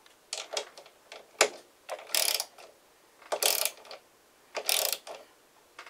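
Ratchet socket wrench clicking in short runs about a second apart, tightening the lock nuts on a model airplane engine's mount bolts.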